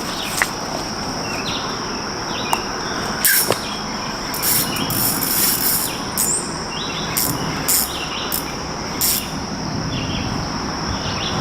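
Insects droning steadily at a high pitch while birds chirp again and again, over a constant hiss. Several short, loud noises cut through about three seconds in and again between five and nine seconds.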